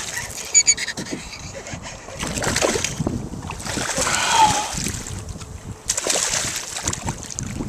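Hooked largemouth bass thrashing and splashing at the water's surface beside the boat in repeated bursts while it fights the rod.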